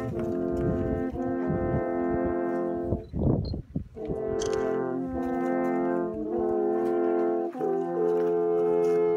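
Three wooden alphorns played together, sounding long held notes at once and moving to new notes every second or so. The notes break off briefly about three seconds in, where a short low rumble takes their place.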